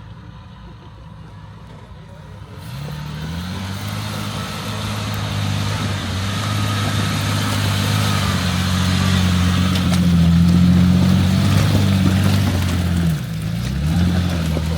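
Off-road vehicle's engine picking up revs about two and a half seconds in and pulling steadily under load, with tyre and terrain noise over it. Near the end the revs drop briefly and come back up.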